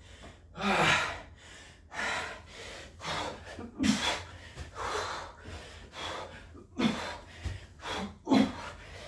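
A man breathing hard and fast, with loud gasping breaths about once a second, from the exertion of a burpee workout.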